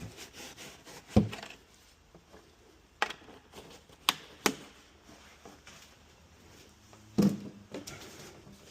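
A handful of separate sharp knocks and clicks, the loudest about a second in: plastic motor-oil bottles and their caps being handled and set down.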